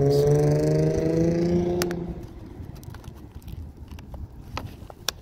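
A passing motor vehicle's engine, a steady pitched drone rising slightly, that fades away about two seconds in. After it come scattered light clicks and taps, as the wiper blades and phone are handled.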